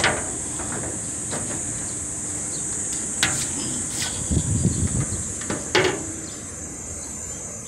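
Sheet-metal casing panels of an air conditioner's outdoor unit being handled: a few sharp knocks and a short rattle about halfway through. A steady high-pitched insect drone goes on underneath.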